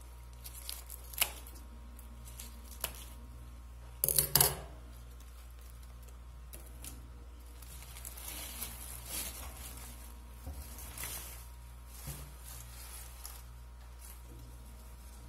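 Bunch of chicory greens being cut loose and handled: a few sharp snips, then a loud crunching tear about four seconds in, and the leaves rustle as the bunch is pulled apart. A steady low hum runs underneath.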